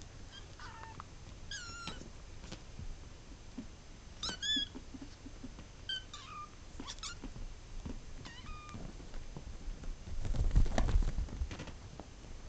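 Kittens play-fighting, giving short, high-pitched, wavering mews about half a dozen times. A louder rustling burst comes about ten seconds in.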